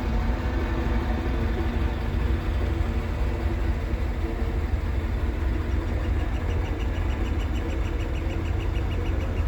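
Vehicle engine idling with a steady low rumble while stopped in a construction queue. About six seconds in, a bird starts a quick run of high chirps, about five a second.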